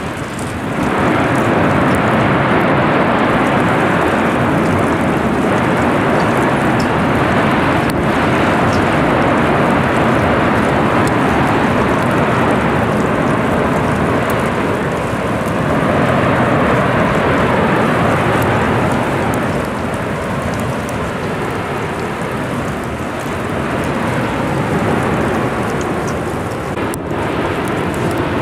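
Lava fountains jetting from the erupting vent of the Cumbre Vieja volcano: a loud, continuous rushing noise that swells about a second in and then holds steady with slight rises and falls.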